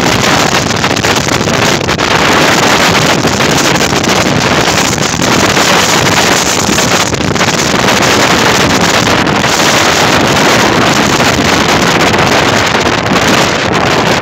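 Loud, steady wind rushing over the microphone of a phone carried on a moving motorcycle.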